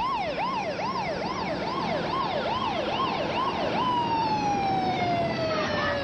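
Emergency vehicle siren yelping, its pitch sweeping up and down about twice a second, then changing to one long tone that slowly falls in pitch.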